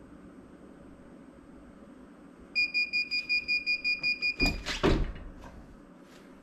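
Vevor heat press timer beeping rapidly at the end of its 15-second press cycle, about six or seven high electronic beeps a second. Then two loud clunks as the handle is released and the heat platen swings open.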